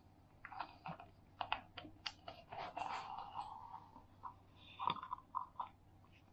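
A cat crunching a dry treat: a quick run of crisp crunches over the first three seconds, then a few scattered clicks about five seconds in.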